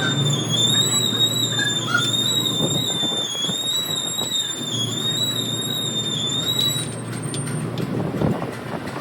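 Car on the move: a steady rumble of road and running noise, with a thin high-pitched whine over it that wavers slightly and stops about seven seconds in.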